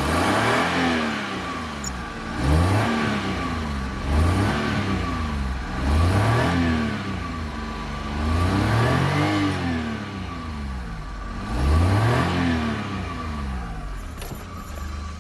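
A small petrol car engine running and being revved repeatedly as the accelerator pedal is pumped, about six times, each rev climbing and falling back in pitch. A steady thin whine runs underneath.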